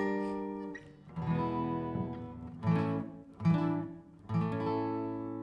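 Acoustic guitar playing the opening chords of a song, several strummed chords each left to ring, the last one held and fading.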